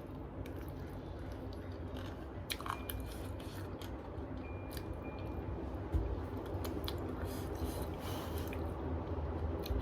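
A person chewing and biting food close to the microphone, with small wet smacks, clicks and light crunches over a low steady hum.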